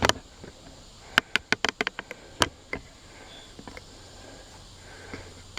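A quick run of sharp clicks and knocks, most packed together between one and two seconds in, with a few scattered later, over a steady background of crickets chirping.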